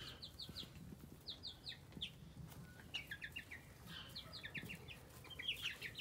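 Three-week-old chicks, meat chickens and egg layers, peeping softly: short high cheeps in quick runs of three or four, recurring about once a second.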